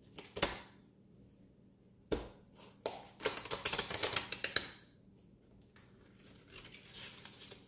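Paper being handled and unfolded: a couple of sharp taps in the first two seconds, then a dense run of crinkling and crackling from about three to five seconds in, with softer rustling near the end.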